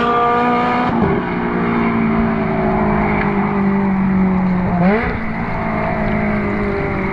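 Ferrari 360's V8 engine passing close by, its note dropping sharply as it goes past, then running steadily as the car pulls away. The pitch dips and climbs again briefly about five seconds in.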